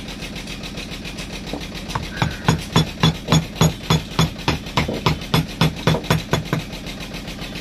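A small carving chisel tapped with a hammer in quick, even strokes, about three a second, cutting a flower outline into teak; the tapping starts about two seconds in, over a steady low hum.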